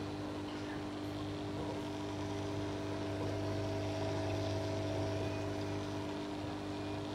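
Steady hum of an aquarium pump with a constant rush of bubbling from the air stones.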